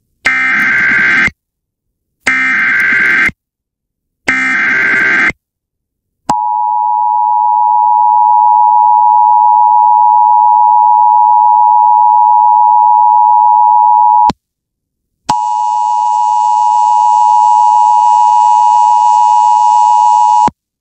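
Emergency Alert System header: three one-second bursts of SAME digital data tones with short gaps between them, then the steady two-tone EAS attention signal for about eight seconds. After a one-second pause, a second, buzzier steady tone sounds for about five seconds.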